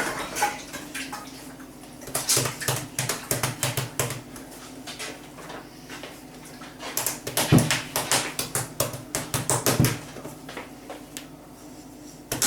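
Yeast bread dough being kneaded by hand on a floured worktop: rapid soft slaps and thumps of dough against the surface, in two spells, one about two seconds in and another about seven seconds in.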